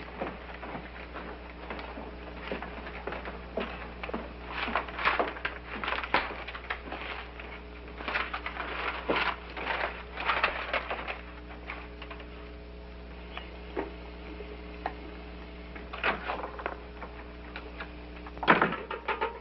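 Footsteps on a wooden staircase and floor, in irregular clusters of knocks over a steady low hum, with a louder knock of a door shortly before the end.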